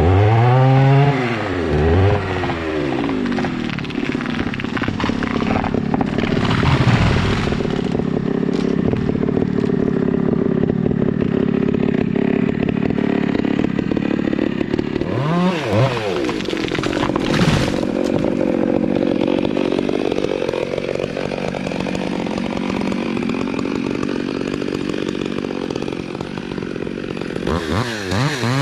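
Chainsaw revving, then running steadily at a held pitch through a long cut. The revs swing up and down again about halfway through and near the end.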